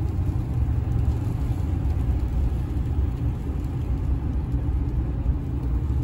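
Steady low rumble of a vehicle's engine and road noise, heard from inside the cabin.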